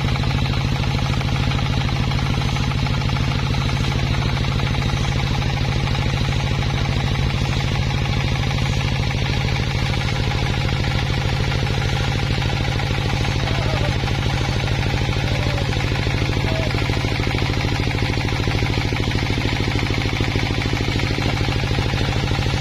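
A machine engine running at a steady speed, a constant drone with no change through the whole stretch. A few faint short chirps come in about two-thirds of the way through.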